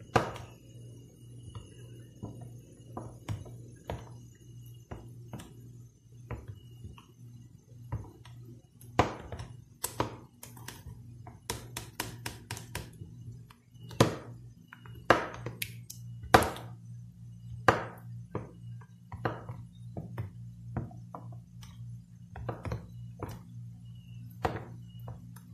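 A metal spoon stirring a thick dragon fruit and cream mixture in a plastic tub, with irregular clicks and knocks as it strikes the sides and bottom of the container, a few of them much louder. A steady low hum runs underneath.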